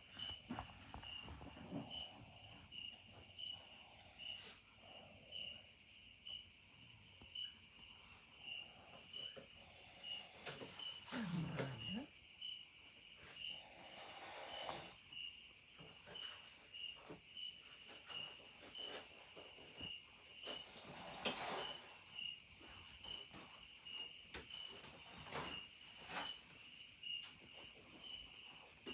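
Night insects, crickets among them: a steady high drone with a regular chirp about twice a second. Scattered soft knocks, with one sharper click about two-thirds of the way through.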